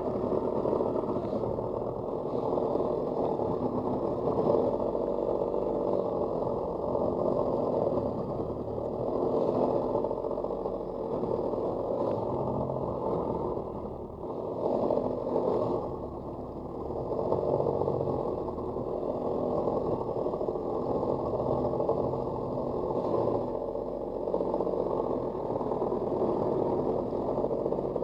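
Stand-up jet ski's engine running under way, its level rising and falling as the ski moves over the water.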